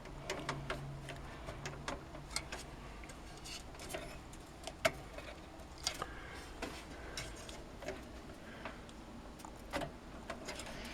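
Scattered light clicks and taps of a motherboard being shifted about inside a PC case as it is lined up with the standoff screws.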